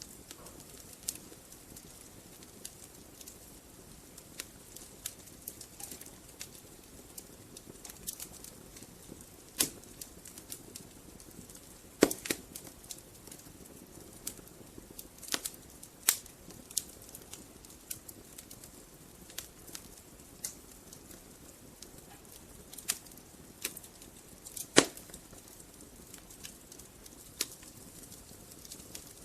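Wood fire burning in a fireplace: a soft steady hiss with irregular sharp crackles and pops from the logs, a few much louder snaps among them.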